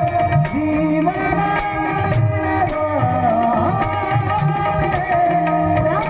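Abhang devotional music: a singer's long, gliding notes over tabla strokes, with sharp percussion strikes keeping a steady beat about two or three times a second.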